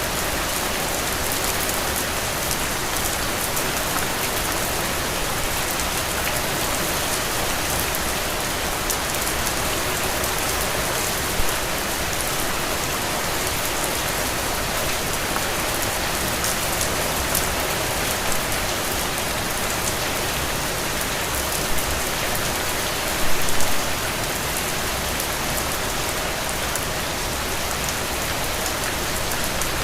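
Steady rain falling, a dense even patter of drops on surfaces, with a few brief louder drops or splashes about 11 and 23 seconds in.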